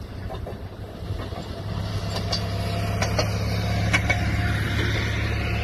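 A rail motorcar (speeder) engine running steadily as the car approaches and passes close by, growing louder. A few sharp clicks from its wheels on the rails come in the second half.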